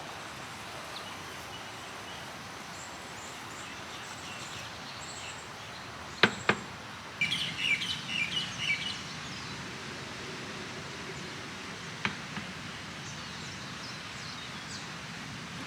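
Outdoor background hiss with birds chirping, a quick run of chirps about seven seconds in and faint calls elsewhere. Two sharp clicks just before the chirping are the loudest sounds, with one more click later.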